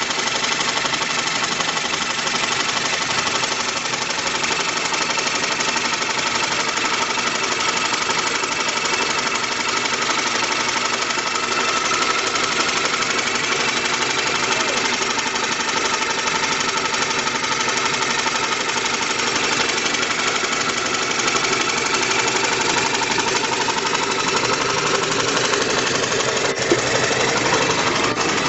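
Rotary steam engine running steadily, driving a blower. The machine's noise is dense and even throughout.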